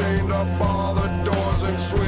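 Rock music soundtrack with electric guitar, bass and drums, and a sung vocal line.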